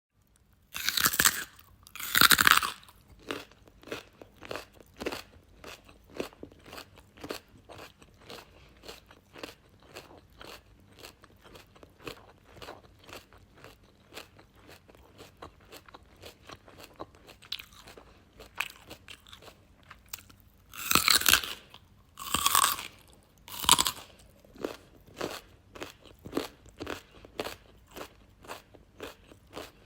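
Raw carrot being bitten off with two loud crunches, then chewed in a steady run of crisp crunches about twice a second. About 21 seconds in, three more loud bites snap off before the chewing goes on.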